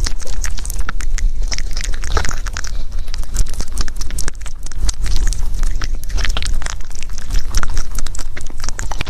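Rabbit chewing and biting mango, close-miked: a rapid, continuous run of small crunching clicks.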